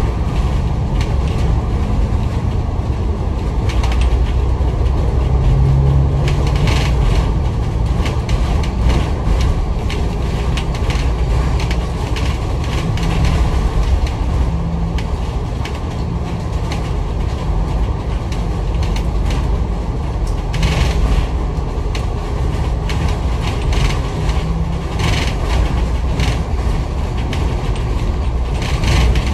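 Inside a moving Citybus bus: a steady engine and road rumble under loud air-conditioning noise, with occasional rattles from the bus body and fittings.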